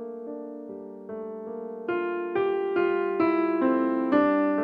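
Background piano music: notes struck about two a second over a held low note, growing louder and rising in pitch about halfway through.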